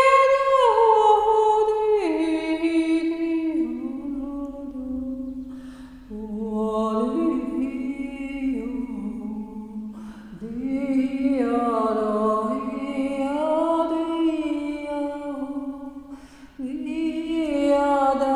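A woman's voice singing without words and without accompaniment: long held notes that slide slowly down and up in pitch, in four long phrases broken by short pauses. It is spontaneous, improvised toning, which the singer describes as healing energy coming through her voice.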